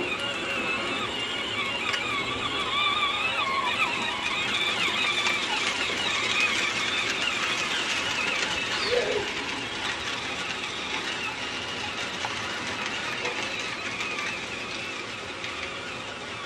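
Battery-powered John Deere ride-on toy tractor driving along, its electric motor and gearbox giving a high, wavering whine.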